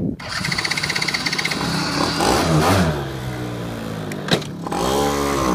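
Quad (ATV) engine running under throttle as it is ridden, its pitch rising and falling as the revs change, with one sharp knock about four seconds in.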